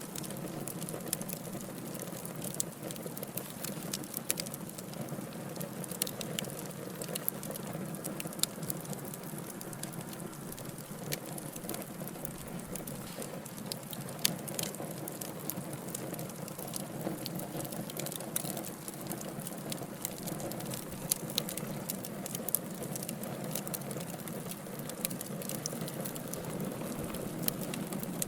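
Wood fire burning: logs crackling, with frequent small sharp pops and snaps scattered irregularly over a steady low rushing hiss.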